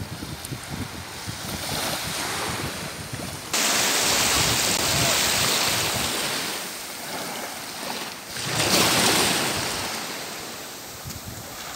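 Small waves breaking and washing up a sandy beach, the surf swelling and fading, loudest about nine seconds in. In the first few seconds, wind buffets the microphone. The sound changes abruptly at a cut about three and a half seconds in.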